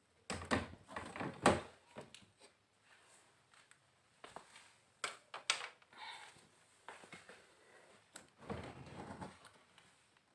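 Clicks, knocks and scrapes of parts being handled on an opened LED TV: a cluster in the first two seconds, two sharper knocks about five seconds in, and a rustle near the end.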